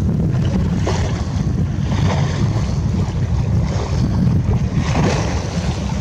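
Wind noise on the microphone of a small boat at sea, a steady low rumble. Waves splash against the hull about one, two and five seconds in.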